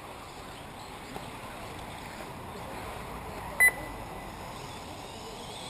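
A single short, loud electronic beep about three and a half seconds in, over a steady background hiss.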